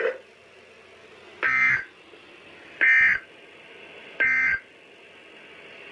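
Emergency Alert System End of Message signal: three short bursts of digital warbling data tones, about a second and a half apart, marking the end of the weather radio warning.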